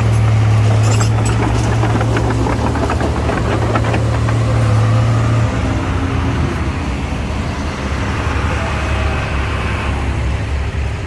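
Heavy-equipment diesel engine running steadily, with a few clanks in the first couple of seconds; its deep note drops lower about five and a half seconds in.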